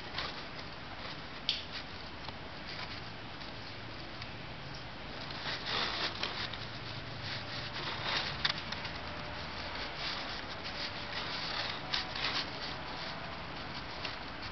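Faint handling noise: soft rustles and a few small clicks over a steady hiss, busiest about halfway through.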